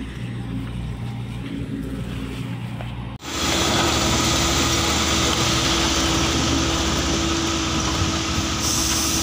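Diesel engines of a dump truck and an excavator running steadily on a muddy earthworks site, loud from about three seconds in. Before that there is only a quieter low steady engine hum.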